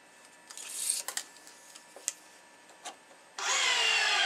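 Stringing machine tensioning a racquet's main string: the string is drawn through with a brief rasp and a few clicks, then about three seconds in the tension head starts pulling, a loud whine that falls in pitch as the tension builds.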